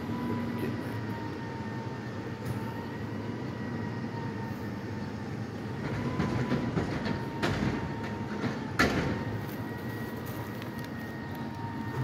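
Mack MRU rear-loader garbage truck running, a steady low rumble with a faint steady whine, while dumpsters are handled. Metal clanks and bangs come from about six to nine seconds in, the loudest near nine seconds.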